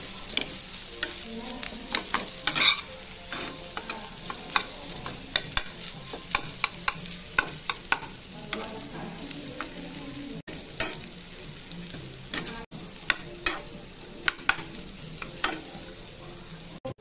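Slotted metal spatula scraping and tapping against a nonstick pan while mashed potato and diced vegetables are stirred and sautéed in oil. Irregular sharp scrapes and taps, one or two a second, over a steady sizzle.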